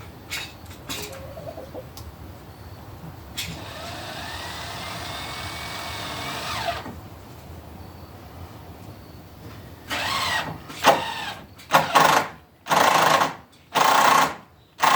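Cordless drill whirring for a few seconds with its pitch rising then dropping off, then triggered again in a string of short bursts about a second apart near the end. The battery, just charged, is already going dead.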